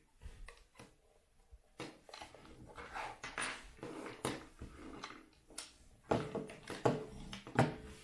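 Irregular handling noise: clicks, knocks and rustling, as of small plastic parts and packaging being handled, with three sharper knocks in the last two seconds.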